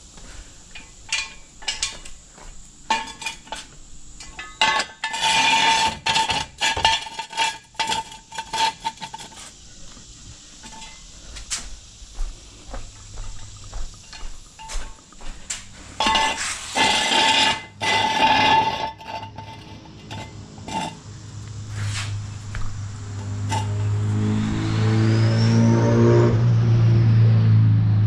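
Metal clinking and clanking in two long stretches, as of tools or jack stands being handled, among scattered knocks. Over the last several seconds a low engine drone swells up and becomes the loudest sound.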